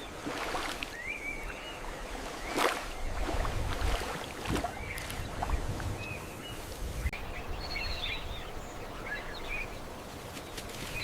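Outdoor wild ambience with scattered short bird chirps over a low rumble, and a few sharp clicks or snaps.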